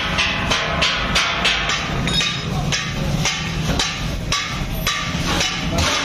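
Repeated hammer blows on the sheet steel of a water-heater tank, about two to three strikes a second, over faint background music.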